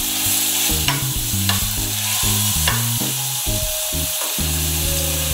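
Chopped garlic sizzling steadily in hot sunflower oil in a saucepan, being lightly fried. A wooden spoon stirs it, scraping the pan a few times.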